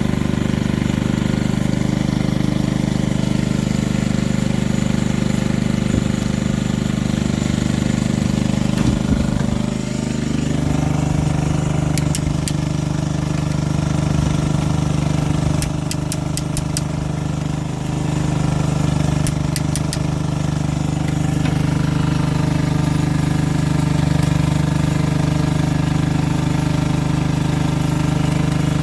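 A steady, low engine-like drone that shifts in pitch about ten seconds in, with a few sharp clicks in small groups around the middle.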